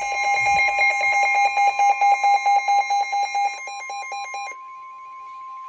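The steady 1050 Hz NOAA Weather Radio warning alarm tone sounds under rapid, loud electronic alarm beeping from the receiver. About four and a half seconds in, the beeping stops and the single steady tone carries on alone, announcing a warning about to be read.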